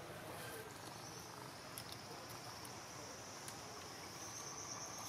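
A steady, high-pitched insect buzz that starts about half a second in, with a few faint clicks.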